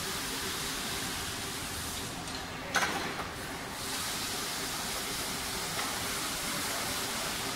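Steady factory-floor noise of a robotic car-body assembly line, a hissing wash over a low machinery hum, with one sharp knock about three seconds in.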